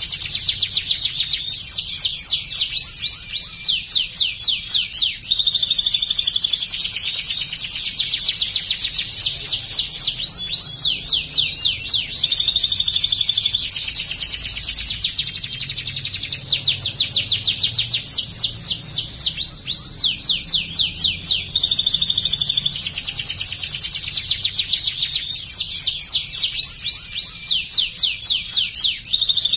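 White domestic canary singing continuously in long phrases. Its song mixes runs of fast, repeated, downward-sweeping notes with buzzy held notes, with brief breaks between phrases. The repertoire includes phrases taken from the bar-winged prinia (ciblek).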